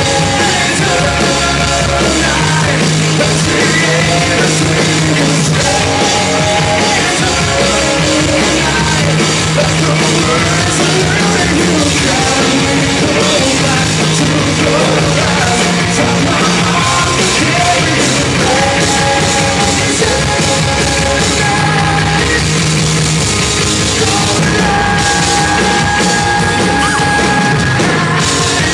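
Live rock band playing loudly: electric guitars, bass and drum kit with a male lead vocal, heard from the audience.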